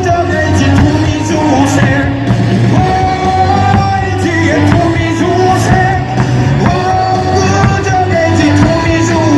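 A Korean pro baseball player's cheering song: a melody sung over a steady beat, with crowd-like yells mixed in.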